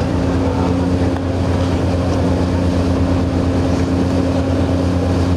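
Coast guard patrol vessel's diesel engines running with a steady low drone, over a constant hiss of wind and water.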